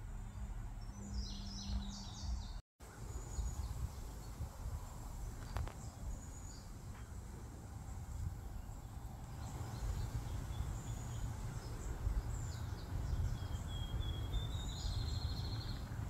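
Countryside ambience: a steady low rumble with birds chirping now and then, and a short rapid bird trill near the end. The sound drops out briefly about three seconds in.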